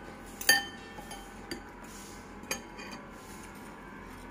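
Metal spoon and fork clinking against a ceramic noodle bowl: a sharp clink about half a second in, the loudest, then lighter clinks about one and two seconds later.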